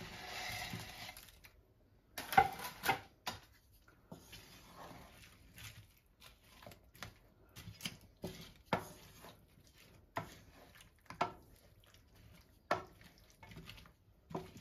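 Breaded chicken pieces slide off a wooden chopping board into a frying pan with a soft rustle, followed by sharp knocks a couple of seconds in. Then a wooden spatula stirs the pan, knocking and scraping against it about once a second.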